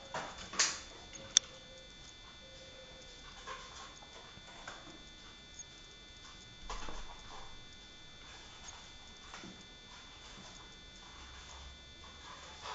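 Sparse light clicks and taps from a canary in its wire cage, the two sharpest within the first second and a half, with a short rustle about seven seconds in.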